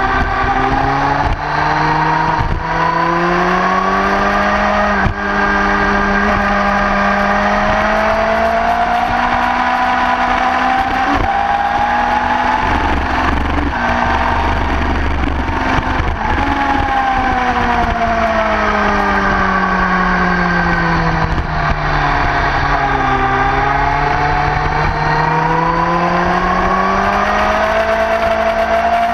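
Sport motorcycle engine at full throttle on a racetrack, its pitch climbing through the gears with brief dips at the shifts. About halfway through, the pitch falls for several seconds as the bike slows for a corner, then it climbs again under acceleration. Wind rumbles on the microphone underneath.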